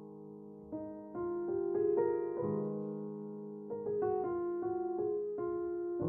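Background piano music: slow, held chords and single notes that ring and fade, with a new chord struck every second or so.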